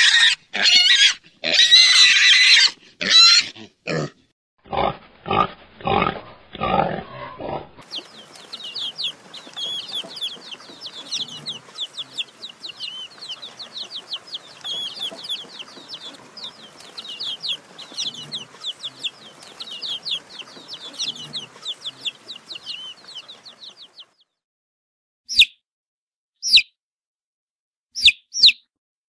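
Loud high animal squeals for the first few seconds, then a run of shorter repeated calls. After that comes about sixteen seconds of dense high chirping typical of chicks, and near the end a few single peeps from a chick in a hatching egg.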